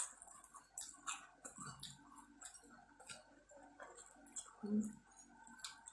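Quiet eating sounds: people chewing and slurping instant noodles, with scattered small irregular clicks from chopsticks and utensils.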